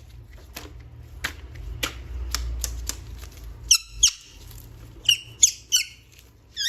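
Handling of a plastic toy: scattered clicks and taps, with short high squeaks about four seconds in and several more near the end.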